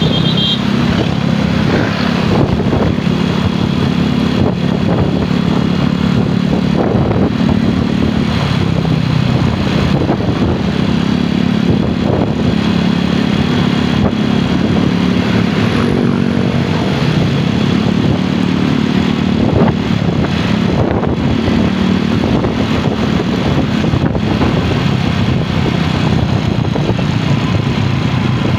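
Motor vehicle engines running steadily with continuous traffic noise.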